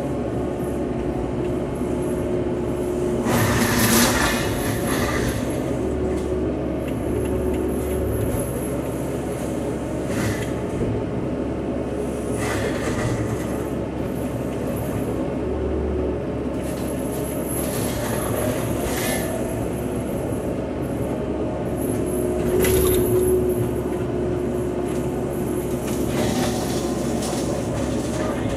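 Cat 311 excavator's engine and hydraulic flail mower head running steadily, heard from inside the cab. Several short, louder rasping spells come as the flails chew into brush and soil.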